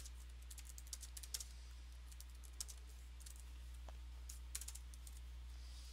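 Typing on a computer keyboard: a quick run of keystrokes, then a few scattered keystrokes later on, over a faint steady low hum.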